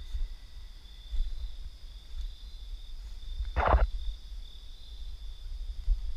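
Night insects calling in a steady, high-pitched chorus, with a low rumble of the handheld microphone underneath. About three and a half seconds in, a short rough sound louder than the rest stands out.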